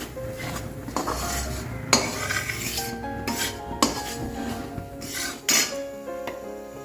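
A metal spoon clinking and scraping against a cooking pan, several sharp knocks about a second apart, as singoda (water chestnut) flour is stirred into ghee to roast.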